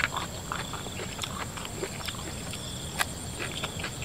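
Close-up wet chewing and lip smacking of a mouthful of spicy raw shrimp salad: irregular short smacking clicks, a few a second. Crickets trill steadily in the background.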